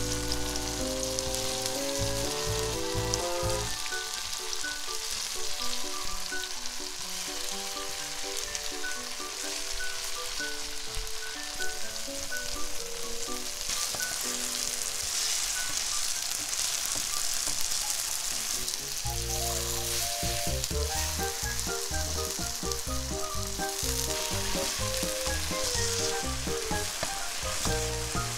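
Slices of tofu frying in hot oil in a nonstick wok, a steady sizzle, with a metal spatula turning the pieces. A background music track plays over it throughout.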